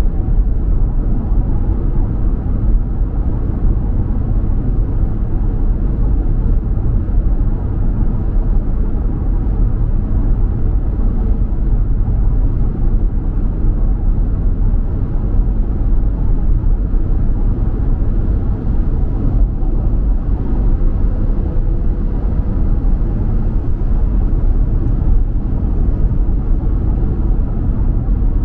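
A car driving at steady speed: an even, low rumble of road and engine noise with no change in pace.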